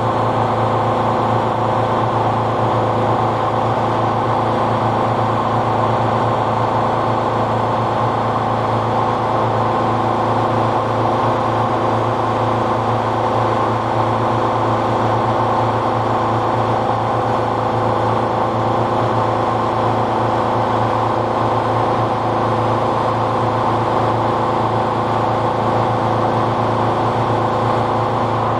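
Tuxing twin-cylinder high-pressure air compressor running steadily, pumping an air bottle up toward its 4,300–4,400 psi auto-stop set point. It is an even mechanical hum that holds the same pace throughout.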